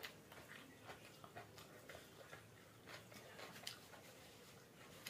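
Near silence with faint, scattered clicks of a person chewing food with her mouth closed.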